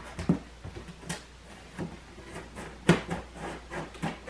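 Scissors and hands working at a large cardboard box: irregular snips, scrapes and knocks of cardboard, the loudest a little before three seconds in.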